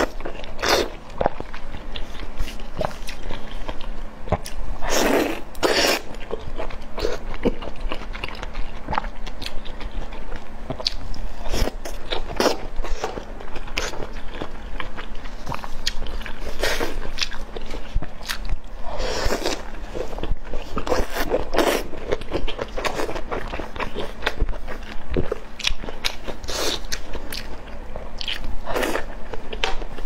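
Close-miked eating: a person biting and chewing skewered oden such as fish cakes and fish balls, a steady run of small wet mouth clicks with a few louder bites.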